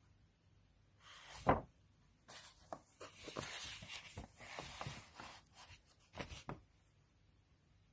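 Close handling noise: rubbing and scraping with a single knock about one and a half seconds in, then a few seconds of scraping and light clicks.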